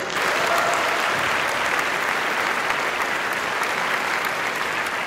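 Audience applauding, a steady clapping that starts at once.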